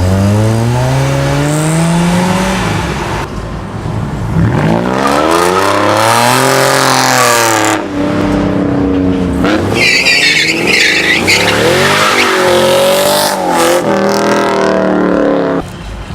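Performance car engines revving and accelerating hard as they pull away, the engine pitch climbing and dropping several times. A high tyre squeal comes in about ten seconds in.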